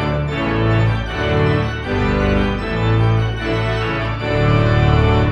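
Music: sustained organ chords over a deep bass, the chords changing every second or so.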